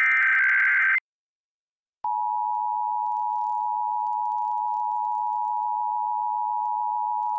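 An Emergency Alert System SAME data header: a one-second burst of warbling digital data tones that encodes the alert. After a second of silence, the steady two-tone EAS attention signal comes in about two seconds in and holds.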